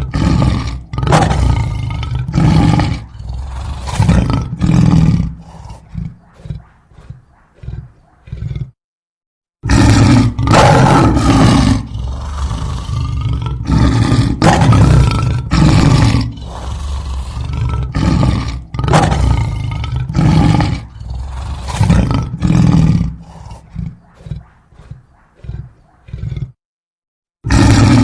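An animal roaring: a series of loud, deep calls that fade into shorter, weaker ones, then break off into a moment of dead silence and start over twice.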